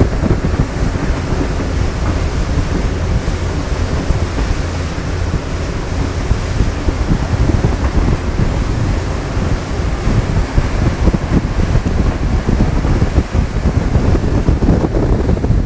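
Wind buffeting the microphone and rushing water over a steady low rumble, from a twin-engined Sunseeker 88 motor yacht running at about 14 knots.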